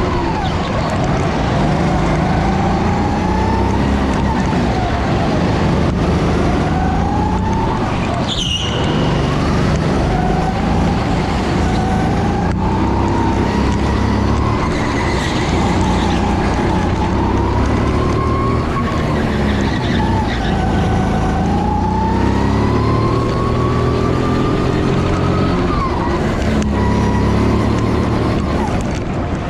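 Go-kart engine running during a lap, its pitch rising and falling as the kart speeds up and slows through the corners, over a steady rush of noise. There is one sharp knock about eight and a half seconds in.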